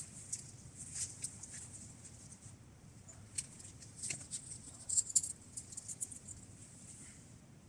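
Synthetic tent fabric and camping gear rustling and crinkling as they are handled, with irregular sharp clicks and scratches, busiest about five seconds in.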